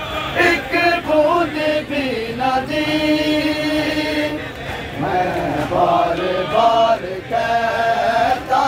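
Men chanting a noha, a Shia lament for Imam Hussain, unaccompanied by instruments, in long drawn-out sung lines with brief pauses between phrases.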